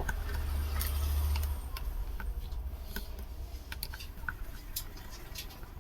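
Small screwdriver unscrewing the screws of a plastic Bluetooth speaker case: scattered light clicks and taps of the tool and screws, with a low handling rumble over the first second and a half.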